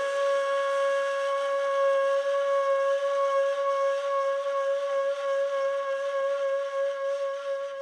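Background music: one long note held steady on a flute-like wind instrument.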